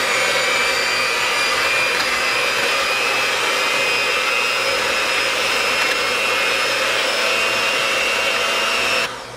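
Electric hand mixer with a whisk attachment running at steady speed, beating raw eggs in a plastic bowl: a steady motor whine that cuts off near the end.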